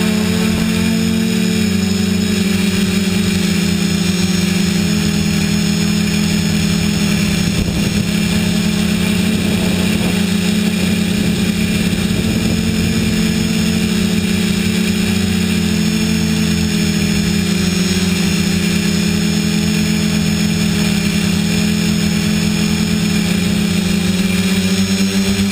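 TBS Discovery quadcopter's electric motors and propellers running in flight, close up on the airframe: a loud steady hum whose pitch wavers slightly as the throttle changes.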